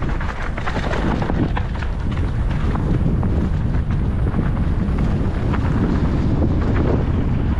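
Wind rushing over a helmet-mounted camera's microphone as a mountain bike rolls down a dirt trail, with many short clicks and knocks from the tyres and bike going over the bumpy ground.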